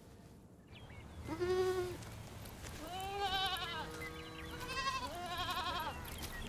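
Goats bleating: three wavering bleats, each lasting just under a second. The first, about a second in, is the loudest.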